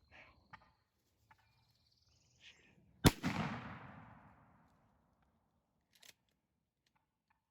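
A single shotgun shot about three seconds in, with its report echoing and dying away over about a second and a half.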